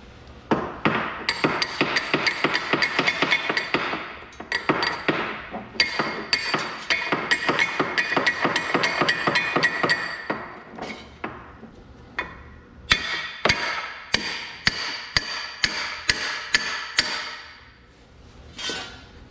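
Hammer strikes on steel with a metallic ring, tapping a part of a Clark tractor front axle into its bearing: long runs of rapid taps, then a short pause and slower single blows. The part is being driven home after going in crooked, until it squares up with the bearing.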